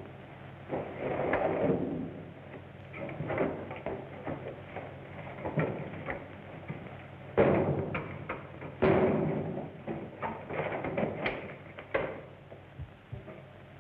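Sounds of a scuffle: irregular knocks, bumps and scrapes, with two louder hits about halfway through.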